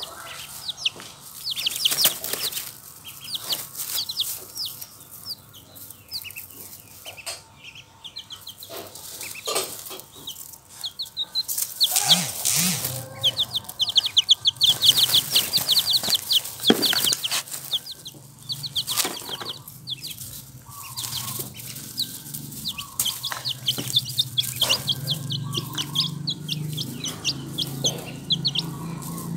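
Four-day-old ducklings peeping in fast series of short, high chirps, loudest about halfway through, with splashing and dabbling as they drink from a shallow water bowl.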